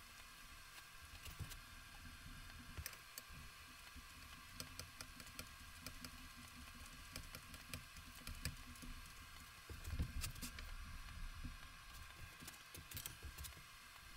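Faint clicks and light taps of metal lathe parts being handled and fitted onto a lathe headstock while the back gears are assembled, with a duller knock about ten seconds in.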